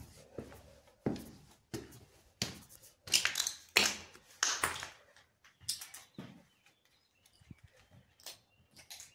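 Footsteps on concrete stairs and a floor strewn with rubble, grit and cardboard, crunching and scraping at walking pace. They are loudest about three to five seconds in, then turn to lighter steps and clicks.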